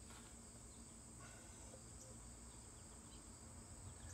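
Near silence, with a steady high-pitched insect chorus in the background.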